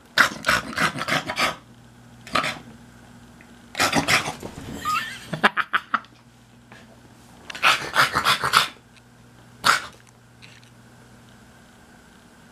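Small dog barking in short bursts, five times with pauses between, over a faint steady low hum.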